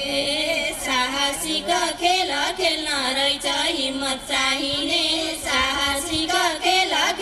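A woman singing a Nepali Teej folk song in a high voice, the melody bending and wavering with ornaments, with little instrumental backing.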